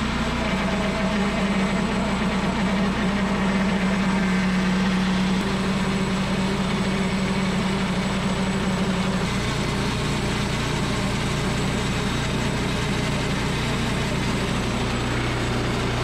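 Portable band sawmill running, its engine at a steady speed under the mill's work; the strongest low hum drops back about five seconds in and the note shifts again a little past halfway.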